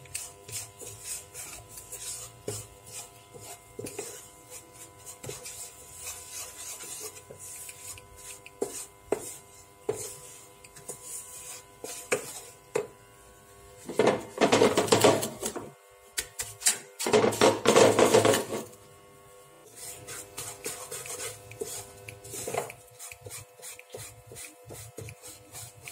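A spatula stirring and scraping a dry, crumbly crust mixture around a nonstick frying pan, in a rapid run of short scrapes and taps. There are two louder, more vigorous bouts of scraping past the middle, over a faint steady whine.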